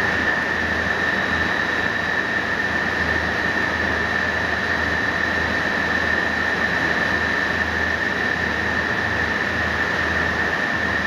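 Extrusion lamination machine running steadily: an even mechanical noise with a constant high-pitched whine over it.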